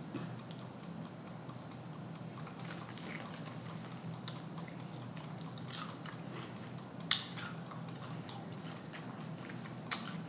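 Close-up eating sounds: biting and chewing food, with faint crunches and two sharp clicks, one about seven seconds in and one near the end, over a low steady hum.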